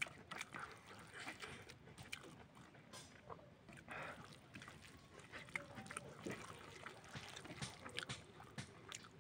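Faint close-up eating sounds: chewing and mouth smacks, with fingers mixing and scooping rice and beans in a steel bowl, heard as a scatter of small clicks and soft wet smacks.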